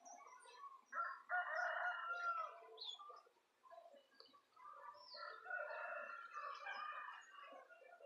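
Papa-capim seedeaters singing from their cages, short chirps scattered throughout. Longer, louder, lower calls come in about a second in and again from about five seconds.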